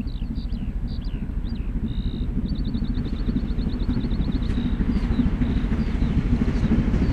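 Steam locomotive 46233 Duchess of Sutherland, an LMS Princess Coronation class Pacific, running light with its support coach: a steady low rumble that grows louder as it approaches. A small bird chirps over it, with a rapid trill about three seconds in.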